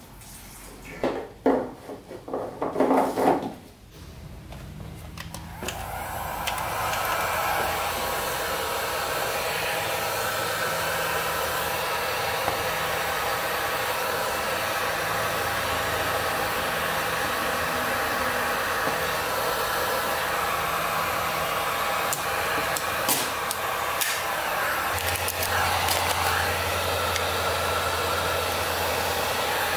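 Fuel glugging out of a gas can into an ATV tank for the first few seconds, then a cordless heat gun switches on about five seconds in and blows steadily, warming an old registration sticker to loosen its adhesive.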